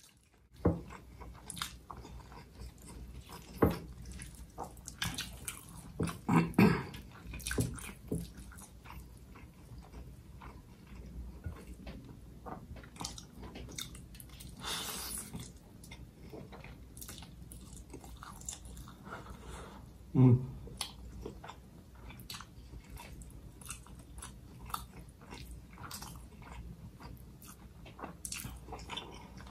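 Close-miked mukbang eating of nasi ambeng: irregular chewing, biting and mouth smacks. A short low thump comes about 20 seconds in.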